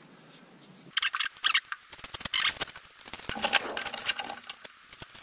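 A plastic packaging bag crinkling and rustling as it is handled and opened, in irregular crackles that start about a second in.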